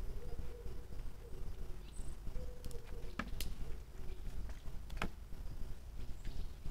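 A deer feeding at a round tray on the forest floor: a few sharp knocks against the tray, three in all, the last about five seconds in, over a steady low rumble.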